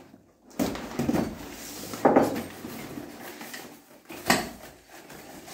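Long cardboard box being opened by hand: tape cut and the cardboard lid pulled up and lifted off, with scraping and rustling and several knocks, the loudest about two seconds in and just after four seconds.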